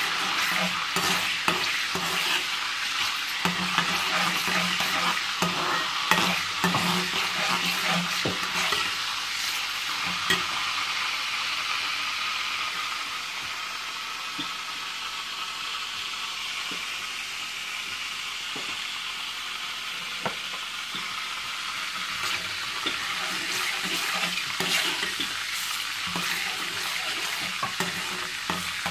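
Cumin seeds and whole spices (black peppercorns, cinnamon, cloves) sizzling in hot oil in a stainless steel karahi, with a metal spoon stirring and clicking against the pan now and then. The sizzle is strongest in the first ten seconds or so, then settles a little quieter.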